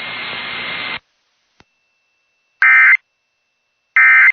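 Emergency Alert System broadcast: steady radio static hiss cuts off about a second in. It is followed by two short, raspy digital data bursts about 1.3 seconds apart, the EAS end-of-message (NNNN) tones that close the alert.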